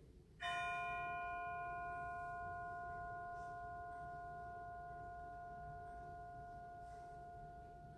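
A bell struck once about half a second in, its clear tone and several overtones ringing on and slowly fading. It is sounded in remembrance after a name of the dead is read.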